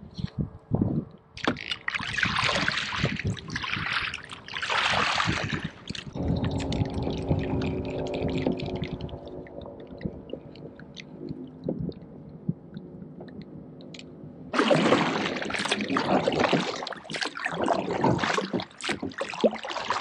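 Water splashing and sloshing against a kayak. There are two swishes in the first few seconds, a low steady hum around the middle, and a longer run of splashing from about three quarters of the way through.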